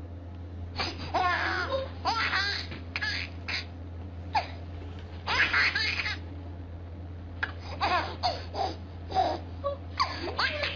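A baby laughing in repeated bouts of pitched, bubbling laughs, starting about a second in, with short pauses between bouts.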